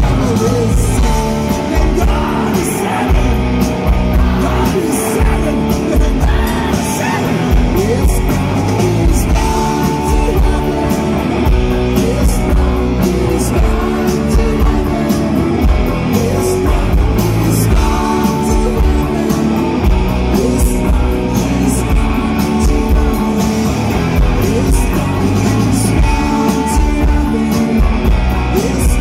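Live rock band playing, with electric guitars and a drum kit under a male lead vocal sung into the microphone, recorded from the audience.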